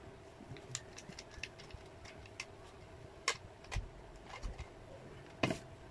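Irregular small clicks and a few louder knocks of a palm router's clear plastic base and thumbscrew being handled while a straight guide is fitted; the loudest knock comes near the end.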